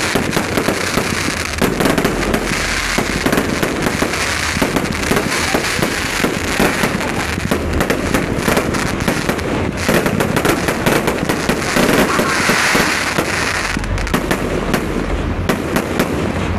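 Fireworks display going off in a rapid, continuous barrage: many sharp bangs of aerial bursts in quick succession, mixed with crackling, with no pause.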